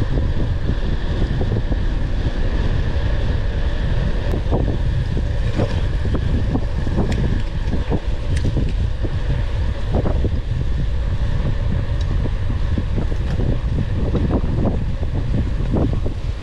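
Wind rushing over the microphone of a camera on a moving bicycle: a steady low rumble, with scattered light knocks.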